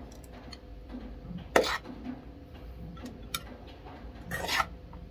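Eating and utensil sounds: a short loud noisy burst about a second and a half in, a small click, then a longer scraping burst near the end as a metal spoon scoops rice from an aluminium pot. A steady low hum runs underneath.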